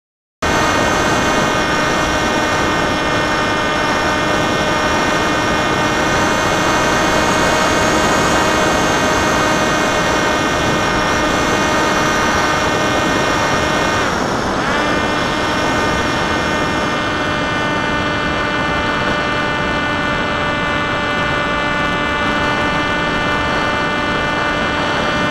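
Popwing flying wing's electric motor and propeller whining steadily over rushing wind noise. About halfway through the pitch dips sharply and climbs back within a second, as the throttle is eased and reopened.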